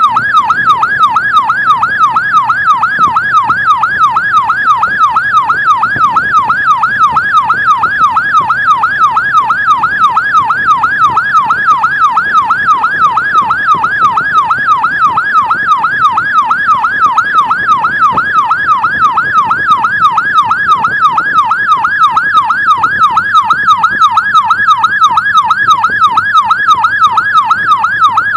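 Electronic emergency-vehicle siren on a fast yelp, sweeping up and down about three times a second without a break, over a low vehicle hum.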